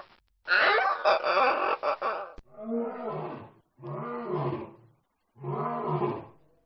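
Lion roaring: one long, loud roar, then three shorter roars about a second apart, each a little apart from the next.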